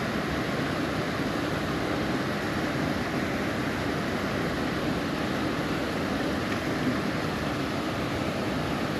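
Water pouring over a concrete lake spillway: a steady, even rushing that holds level throughout.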